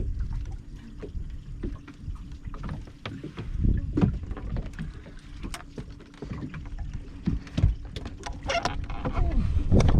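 Outdoor noise on a small fishing boat: a steady low rumble of wind on the microphone, with many short knocks and clicks from gear and hands moving about the boat.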